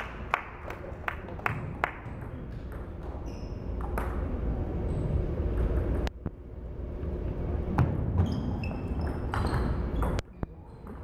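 Table tennis ball clicks: a quick, even run of bounces in the first two seconds, then single sharp hits of a rally in the second half, with a few short high squeaks near the end.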